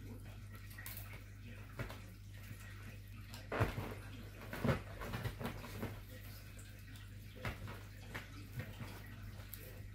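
Soft thumps, scuffs and rustles of a Savannah kitten pouncing and scrabbling on a leather sofa while batting at a string toy, the loudest a little over three and a half seconds in and again near five seconds. A steady low hum runs underneath.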